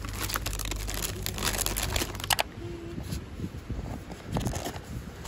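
Plastic crinkling and sharp clicks as a clear plastic lid is worked off a takeaway food bowl.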